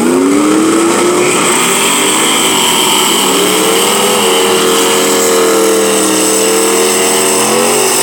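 Fox-body Ford Mustang's engine revved hard and held at high revs during a drag-strip burnout, spinning the rear tyres to heat them before a run. The revs climb at the start, sag briefly around two seconds in, then rise again and hold steady until near the end.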